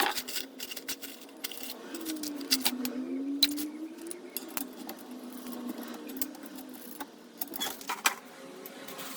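Small metal parts clinking, rattling and knocking as they are handled and fitted, over a faint low tone that dips and rises about two to four seconds in.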